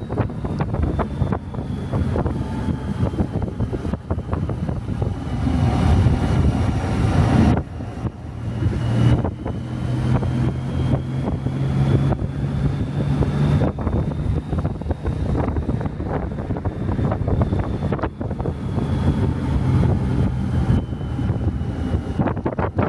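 Motorcycle engine running steadily under heavy wind buffeting on the microphone. The wind noise swells about six seconds in and drops off suddenly soon after.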